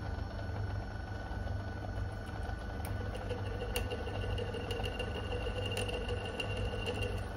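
Small metalworking lathe running, its spindle turning a drill bit that is being hand-fed into a cast steam-engine cylinder to drill a steam passage: a steady motor hum, with a thin whine joining in about three seconds in as the bit cuts.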